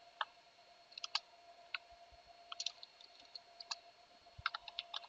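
Computer keyboard keystrokes, a few sparse, irregular clicks in small clusters, over a faint steady electrical hum.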